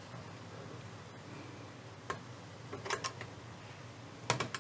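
Sharp metallic clicks and taps of hand work on a Philips AG 1025 turntable's tone-arm mechanism while its screws are being undone: one click about two seconds in, a few around three seconds and another cluster near the end, over a faint low hum.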